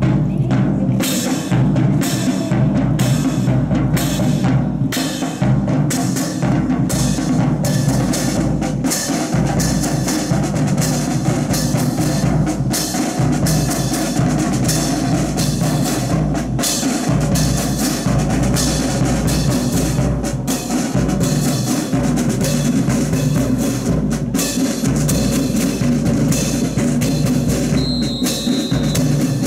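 Marching drums, bass drum and snare, beating a steady drill cadence of about two strokes a second that grows busier after the first few seconds. A short high tone sounds near the end.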